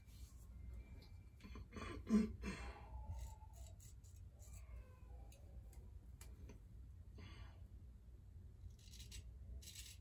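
Soft rubbing as a hand feels over freshly shaved skin to check for missed stubble, with one brief louder low sound about two seconds in. Near the end come short scraping strokes of a straight razor cutting leftover stubble on the neck, a touch-up pass.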